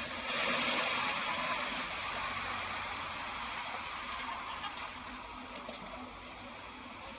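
Heavy rain falling, a steady hiss that slowly fades over the seconds.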